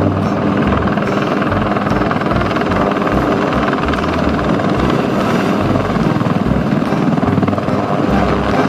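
Helicopter running steadily, a dense fast rotor chop over engine noise.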